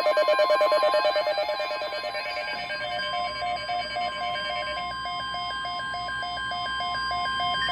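NOAA Weather Radio's 1050 Hz warning alarm tone, a single steady, unbroken electronic tone that signals an emergency alert, here a severe thunderstorm watch, is about to be read. A second electronic alert tone pattern, pulsing and warbling, sounds over it.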